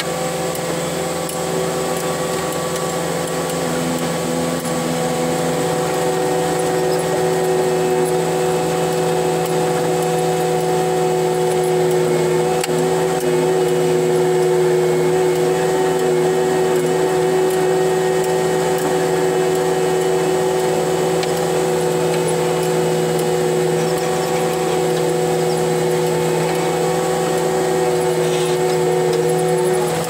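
Cat 289D3 track loader running steadily while working a dozer blade, heard from inside the cab: a constant diesel drone with a steady whine over it.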